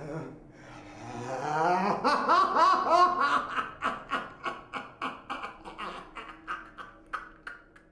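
An old man's long, menacing laugh. It starts with a rising drawn-out cry, then breaks into a run of rapid 'ha' bursts, about four a second, that slowly fade.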